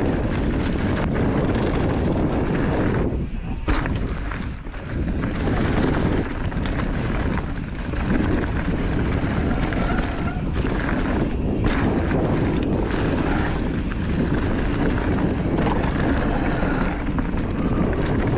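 Wind buffeting the camera microphone at riding speed, mixed with the rumble, rattle and knocks of a mountain bike rolling over rocky trail.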